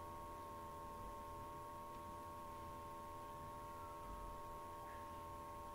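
A steady high-pitched hum, one unchanging tone with fainter lower hums beneath it, over a faint low rumble.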